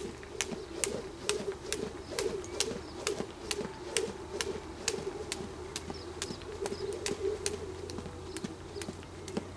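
Jump rope ticking against the dirt on each turn, an even rhythm a little over twice a second, over the continuous cooing of doves.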